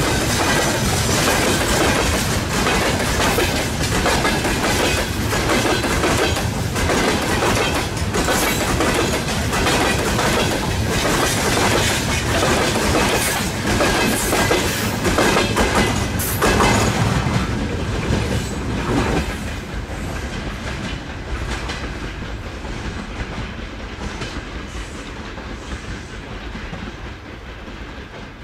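Long freight train rolling past, its wheels clicking over the rail joints in a steady run of clacks. The sound fades away over the last ten seconds or so.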